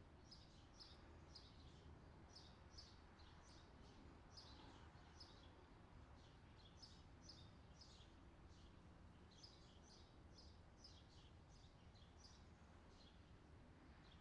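Near silence, with the faint chirping of small birds: short high chirps several times a second, in runs with brief breaks.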